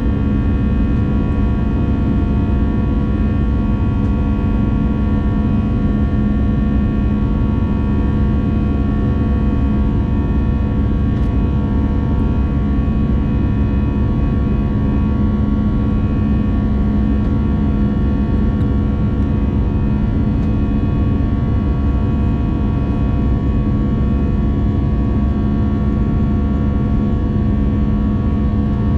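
Steady in-flight cabin noise of an Airbus A220, its Pratt & Whitney PW1500G geared turbofans giving a constant drone with several held tones over a low rumble.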